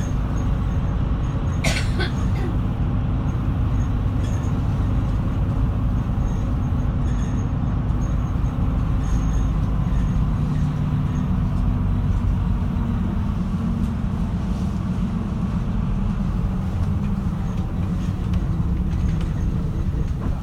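A route bus running, heard inside the cabin: a steady low engine and road rumble, with one brief rattle about two seconds in.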